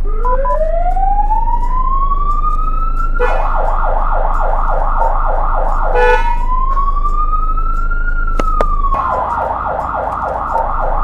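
Fire truck's electronic siren cycling through its tones: two short beeps, then a slow wail rising for about three seconds. It switches to a rapid yelp for about three seconds, then a slow wail rising and falling, and back to the rapid yelp near the end.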